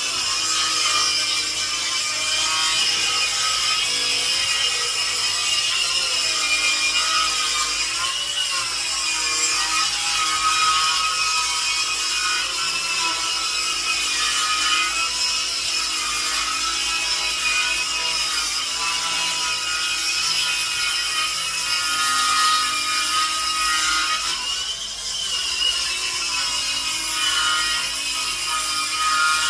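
Cordless Ryobi HP track saw running steadily as it rips a long 45-degree bevel along a rough-cut cedar board on a 20-foot track. The motor whine wavers briefly in pitch about eight seconds in and again around 25 seconds, as the load on the blade changes.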